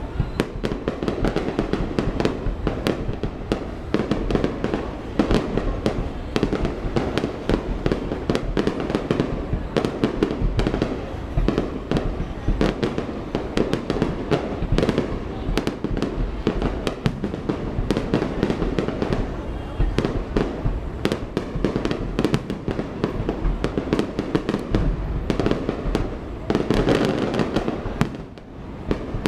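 Fireworks display: a dense, continuous barrage of bangs and crackles from aerial shells, thinning out briefly near the end.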